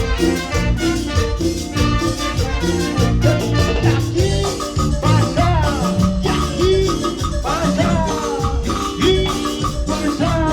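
Live band playing an instrumental passage without vocals: a steady dance beat with shaken percussion under a lead melody whose notes slide up and down in pitch.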